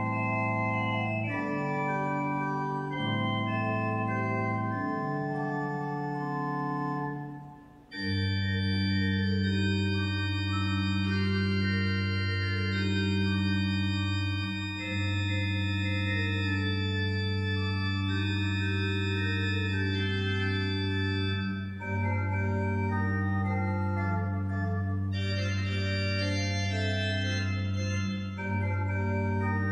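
Organ music: slow, sustained chords that break off briefly about seven seconds in, then go on over a long held bass note.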